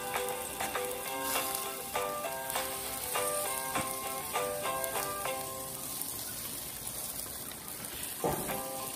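Chicken, burgers and sausages sizzling on a barbecue grill, with light instrumental background music of quick melodic notes over it. A low handling sound comes near the end as tongs go to the meat.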